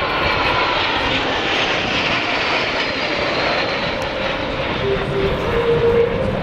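A formation of CASA C-101 jet trainers flying past with a steady jet roar, the pitch slowly falling as they go by.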